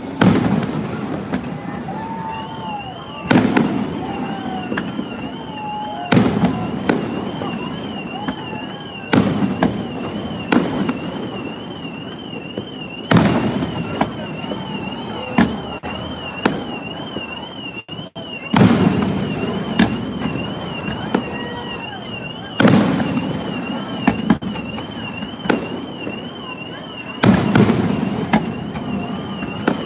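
Aerial fireworks booming every one to three seconds, some shells bursting in quick pairs and clusters. Under them a high, warbling alarm tone sounds steadily, starting about two seconds in.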